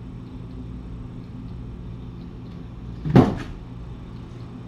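A door shutting once with a single sharp thump about three seconds in, over a steady low hum.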